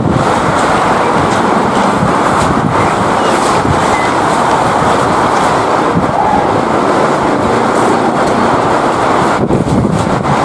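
A train passing close by on the track: a loud, steady rush of running noise with occasional clicks of the wheels over the rails.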